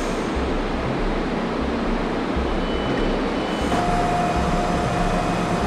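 S-Bahn train at an underground platform: steady train noise, with a steady high tone coming in about two-thirds of the way through.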